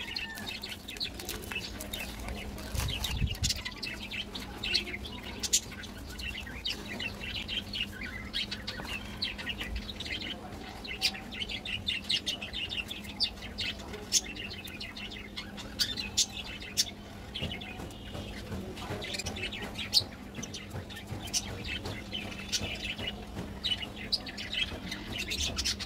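Small birds chirping in quick, repeated bursts, over a steady low hum. A chocolate bar's plastic wrapper crinkles as it is torn open near the start.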